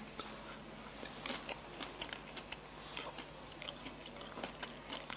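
A person chewing a mouthful of shredded chicken salad with kohlrabi and carrot: a run of small, irregular clicks.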